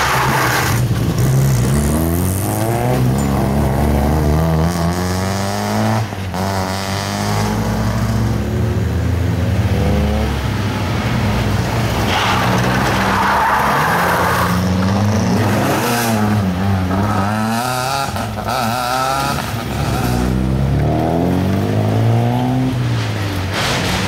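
Rally cars taking a tight hairpin one after another, their engines revving up and dropping back repeatedly as each brakes into the bend and accelerates out, with tyre squeal.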